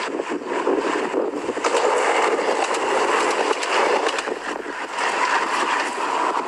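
Red-and-cream diesel railcar passing a level crossing: a loud, steady rush of running noise with scattered clicks.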